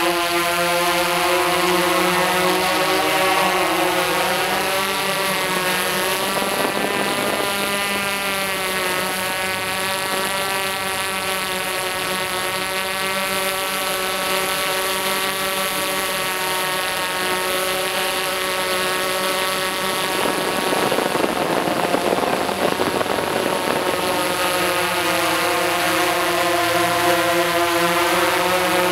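Tarot X8 octocopter's motors and DJI 1552 propellers whirring in flight, a steady hum of many tones. The pitch bends and the sound swells as the drone manoeuvres, about six to nine seconds in and again about twenty to twenty-four seconds in.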